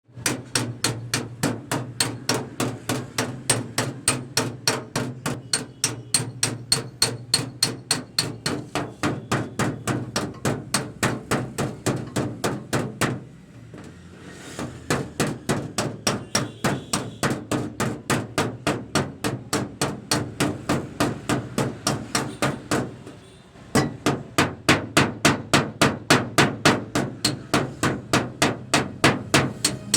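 Rapid, evenly paced hammer taps on a car body panel, about three or four a second with two short pauses. This is paintless dent removal on a Toyota Innova Hycross: a dent-repair hammer and tap-down tool knocking down high spots in the metal.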